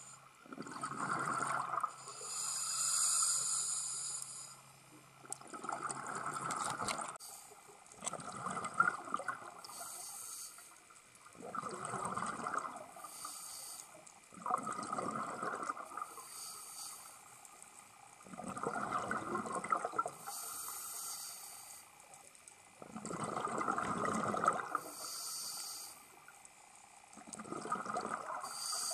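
Scuba diver breathing through a regulator underwater: a short hiss on each inhale, then a bubbling rush of exhaled bubbles, about eight breaths repeating every three to four seconds.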